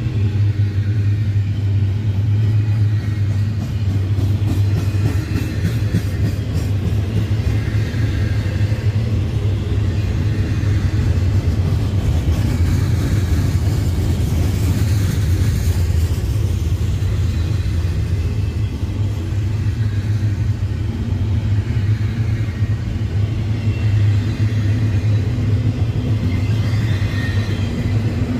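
Double-stack container freight cars rolling past, a steady low rumble of steel wheels on rail. Near the end, a diesel engine's hum joins in as Union Pacific EMD SD70AH locomotives come alongside.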